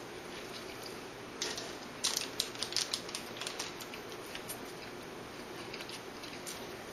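Small clicks and crackles of someone eating double cheeseburgers, bunched together about two to four seconds in and scattered after, over a steady background hiss.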